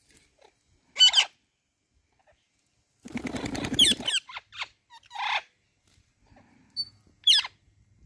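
Parrots screeching: a sharp shriek about a second in, a harsh rasping burst from about three to four seconds with a few short calls after it, and another shriek near the end.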